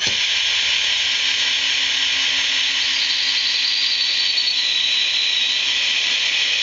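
24-volt DC motor of a hand-built linear actuator running under power, retracting the rod: a steady whirring whine that starts suddenly, with a higher whine joining about three seconds in.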